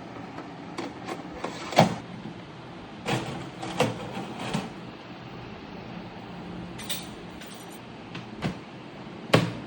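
Scattered knocks and clicks of an air fryer oven and its parts being handled, about seven in all with the loudest near the end, over a steady low hum.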